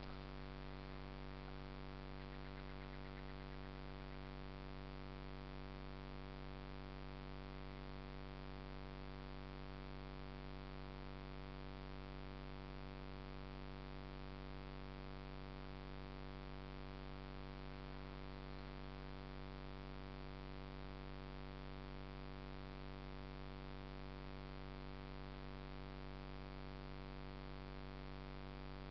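Steady electrical hum with many evenly spaced overtones over a faint hiss, unchanging throughout.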